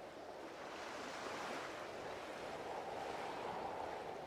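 Sea water washing and rushing past a sailing yacht under way: a steady hiss of waves that swells a little after about a second.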